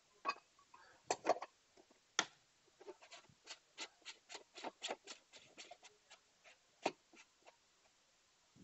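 Hard plastic clicks and taps as the reflector head and threaded bezel ring of a rechargeable handheld torch are fitted and turned by hand, with a few louder clicks at first, then a quick even run of about five clicks a second, and one sharp click near the end.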